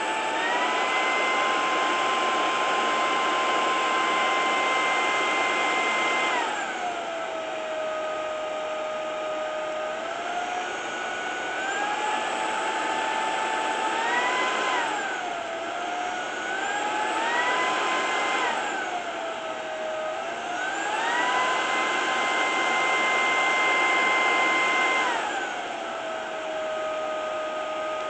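Ultenic U12 Vesla cordless stick vacuum running, its motor whine stepping down and up in pitch as the suction power level is switched. High at first, it drops about six seconds in, climbs back in steps with short dips, is high again for a few seconds past the middle, and falls again near the end.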